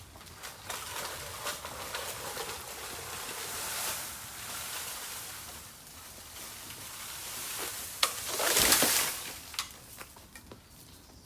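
Bamboo crackling and rustling, with many small clicks. A louder burst of noise about eight seconds in lasts roughly a second.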